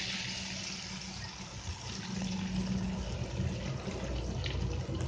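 Opak cracker frying in hot oil in a wok: a steady sizzling hiss that eases a little as the cracker cooks, over a low steady hum.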